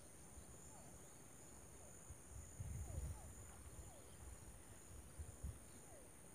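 Faint steady, high-pitched insect chorus, with short falling chirps repeating every second or so. A few low rumbles come around the middle and again near the end.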